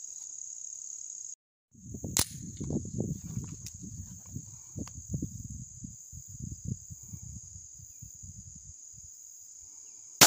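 Crickets chirring steadily, with an irregular low rumble through the middle. At the very end comes a single sharp shot from a Ruger Mark II .22 LR pistol, the loudest sound.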